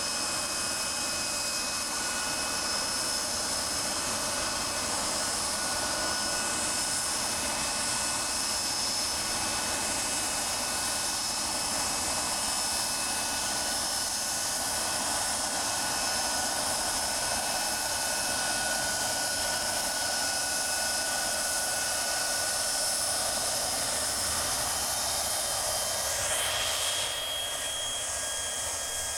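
Jet aircraft engines running on the airfield: a steady rushing noise with several high whining tones. Near the end the whine shifts to a different pitch.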